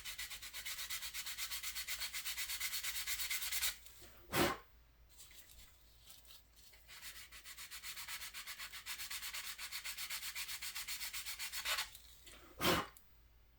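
Sandpaper dry-sanding filler putty on a plastic scale-model car body: quick back-and-forth scratching strokes, about five a second, in two long spells with a pause between. Twice a brief, louder burst of noise cuts in.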